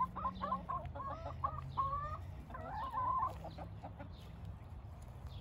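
Backyard chickens clucking, a run of short wavering calls through the first three seconds or so that then die down, over a steady low rumble.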